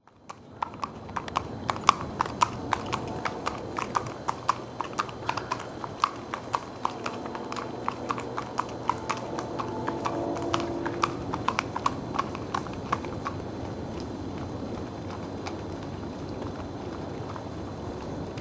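Hooves of two Connemara ponies clip-clopping at a walk on a paved road, about three hoof strikes a second, growing fainter as the ponies move away until they fade out about 13 seconds in.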